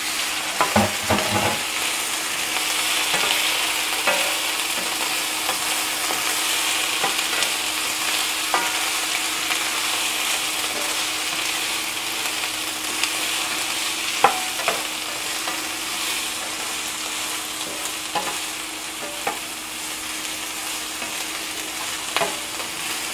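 Long beans, onion and garlic sizzling steadily in oil in a nonstick frying pan, stirred with a plastic spoon that scrapes and clicks against the pan now and then, most busily in the first second or two.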